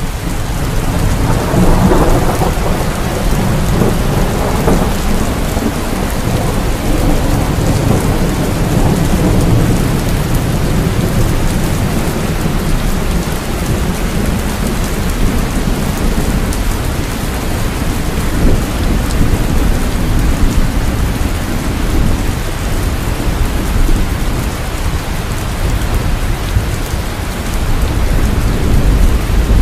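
Steady heavy rain with rolling thunder: a long low rumble swells about a second in and fades over several seconds, and another rises near the end.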